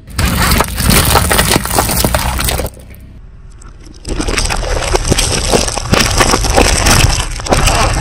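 Brittle objects crushed under a car's tyres: dense crackling, snapping and crunching in two long bouts, with a quieter pause of about a second between them.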